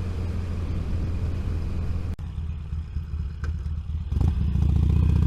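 Wind rush and motorcycle engine and road rumble at around 60 mph, picked up by a microphone inside a rider's helmet. About two seconds in the sound cuts out abruptly and returns thinner. Near the end it comes back louder.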